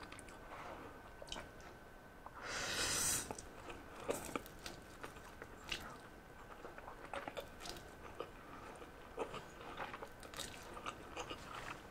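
Close-miked eating of Samyang spicy instant noodles: a noisy slurp about two and a half seconds in, the loudest sound, then soft chewing with many small, scattered mouth clicks.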